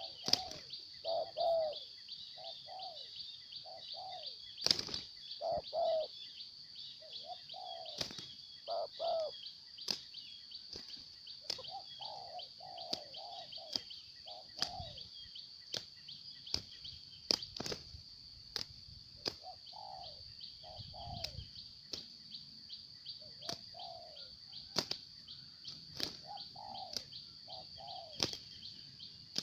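Spotted doves cooing, with short low notes in repeated groups of two or three and pauses between phrases. Under them runs a steady high-pitched hum, and sharp clicks are scattered throughout.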